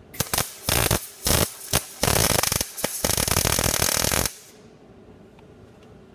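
MIG welder arc crackling while laying a tack weld on sheet metal: several short bursts in the first two seconds, then a longer run of about two seconds that stops suddenly.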